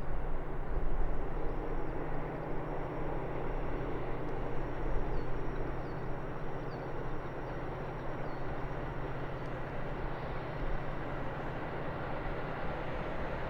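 Steady rumble of a train running past on the line, without a break or any sharp knocks.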